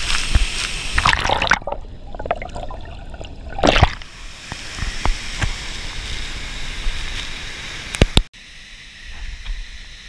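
Waterfall plunge-pool water churning and splashing right against a microphone at the waterline. It turns muffled and gurgling for about two seconds, with a loud splash a little under four seconds in. Two sharp knocks come near the end, then the sound drops suddenly to a quieter background.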